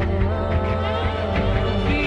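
Background music: an instrumental Bollywood-style song with a steady bass and a melody line.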